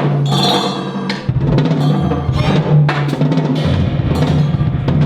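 Live ensemble music led by drum-kit playing, with many strikes over held low bass notes that change a couple of times.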